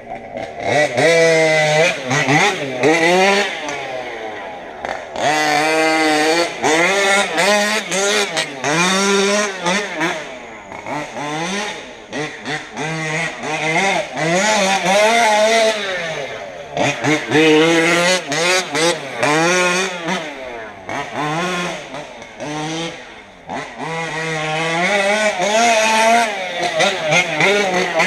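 Modified 38cc two-stroke engine running and being revved up and down over and over, its pitch rising and falling every second or two.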